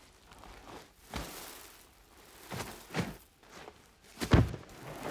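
Irregular heavy thuds and scuffing in sand as a lioness grapples a gemsbok on the ground, the antelope's hooves kicking. The loudest thud comes about four seconds in.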